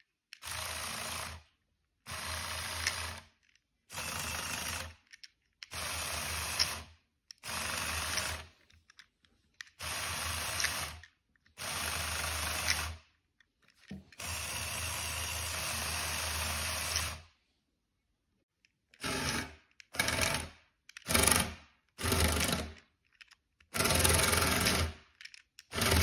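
Small Lego Technic electric motors whirring through their plastic gearing and tracks, switched on from the remote in short bursts of about a second each. About halfway one run lasts about three seconds; after a short pause come quicker short bursts and then longer, louder ones near the end.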